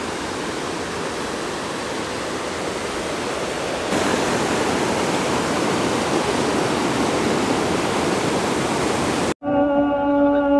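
Mountain river rushing over boulders: a steady roar of white water that steps slightly louder about four seconds in. Near the end it cuts off abruptly and music with long held notes begins.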